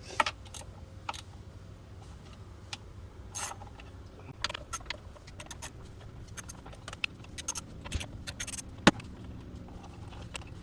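Irregular light metallic clicks and clinks of parts and tools being handled while connectors and components are refitted in a car's engine bay, the loudest about nine seconds in, over a steady low hum.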